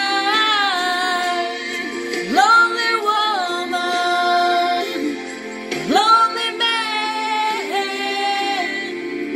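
A woman singing long held notes, sweeping up into a new note about two seconds in and again about six seconds in, over a steady musical accompaniment.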